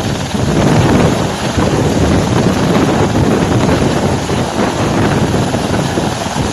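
A helicopter running close by, heard as a steady noise under heavy wind buffeting on the microphone.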